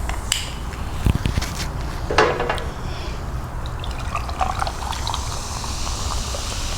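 Pepsi being poured from its can into a glass, fizzing, after a few clicks and knocks of handling the can early on.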